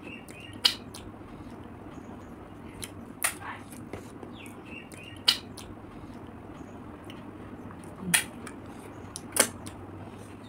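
Close-up eating sounds as fried river snails are picked from their shells with a toothpick: about five sharp clicks and smacks, one to three seconds apart, over a low steady hum.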